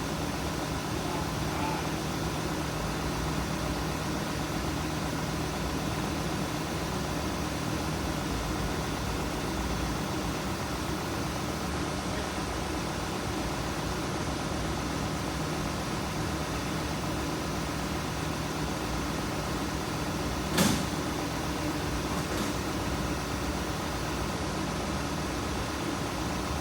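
2016 VW Tiguan's engine idling steadily, with a single sharp click about twenty seconds in.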